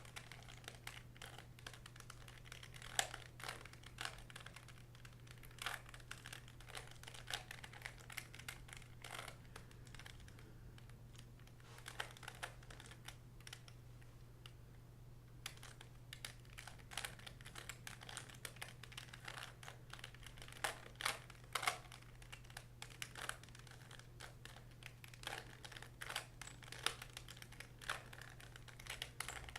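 Plastic clicking of a 3x3 Rubik's cube being turned by hand, in irregular flurries with a pause of a few seconds around the middle, over a steady low hum.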